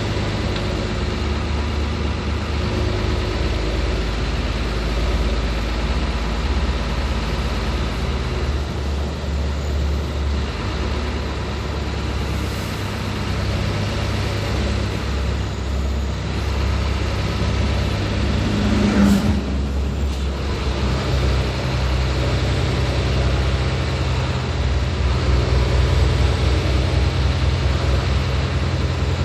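Hino 500 truck's diesel engine running under way, with steady road noise. A short knock comes about two-thirds of the way in, and the engine note steps up soon after.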